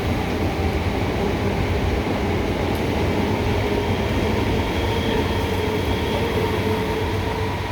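MEMU electric multiple unit train moving along the track: a steady, loud rolling rumble with a faint whine over it.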